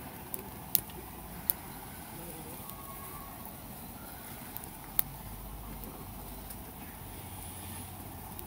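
Wood fire crackling in a small fire stand, with three sharp pops over a steady low background noise.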